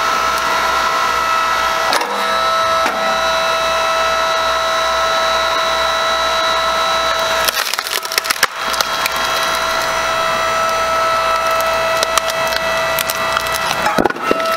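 Geumsung GS1800 9-ton electric hydraulic log splitter with its 3-horsepower motor running with a steady hum as the ram drives a log onto the wedge. The wood gives a quick series of sharp cracks about halfway through, and again near the end, as it splits.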